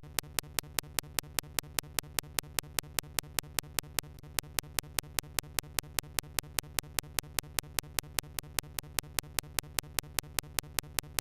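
Sharp, evenly spaced clicks about five times a second over a steady low hum, starting abruptly as the reading voice cuts off: a digital audio glitch in the recording.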